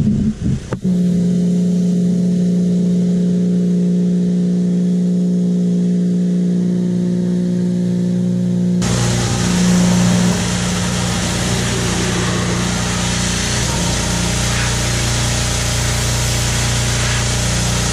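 Pressure washer running with a steady drone; about nine seconds in, the loud hiss of its water spray comes in on top and keeps going.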